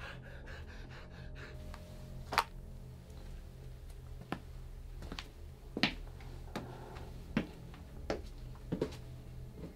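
A series of short, sharp clicks or taps, about nine in all, coming quicker towards the end, over a steady low hum.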